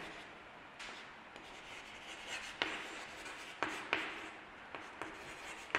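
Chalk writing on a chalkboard: faint scratches and taps of the chalk at irregular intervals as a word is written.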